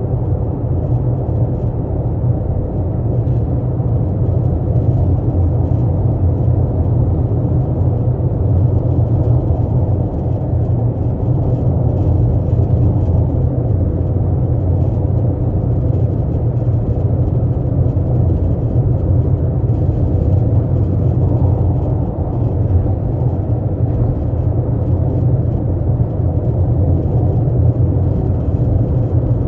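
12th-generation Toyota Corolla Altis in motion: a steady low rumble with a faint constant hum above it, the abnormal noise its owner is recording.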